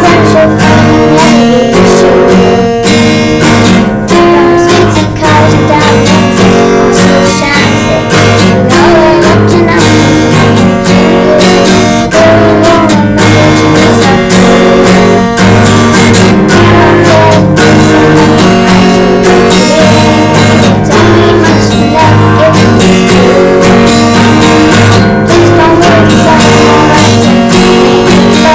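Acoustic guitar strummed in a steady rhythm, with a girl's voice singing along.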